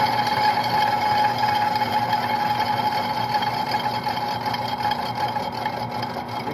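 C10T metal lathe running steadily with a constant gear whine while boring the welded bearing seat of an elevator sheave housing.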